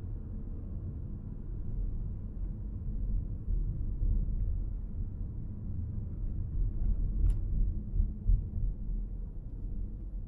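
A car being driven, heard as a steady low rumble of engine and road noise, with one sharp click about seven seconds in.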